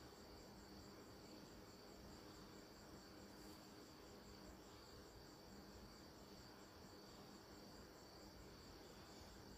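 Near silence: a faint, steady high-pitched insect trill with a low hum underneath.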